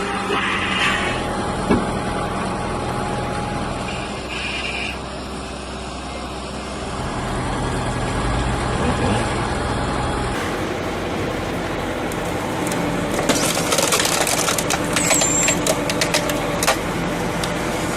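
Engine-driven machinery running steadily. About ten seconds in the sound changes abruptly to other machinery, with a dense run of sharp knocks and cracks near the end.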